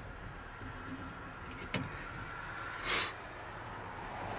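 Faint handling sounds of a screwdriver working at a truck's door speaker: one sharp click a little under two seconds in and a short hiss about three seconds in, over a low steady background.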